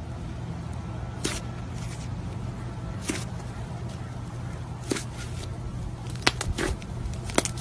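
Thick slime squeezed and worked in a hand, giving a sharp click or pop every second or two as air pockets in it burst, over a steady low background hum.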